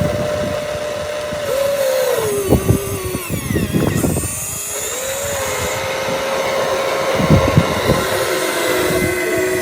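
Small electric motor of an RC excavator's hydraulic pump whining at a steady pitch that sags and recovers under load. Knocks and scrapes mixed in, several of them in the middle of the stretch.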